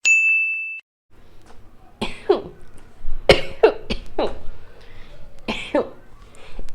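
A short, steady electronic beep, then after a pause a person coughing repeatedly, about eight sharp coughs in small clusters.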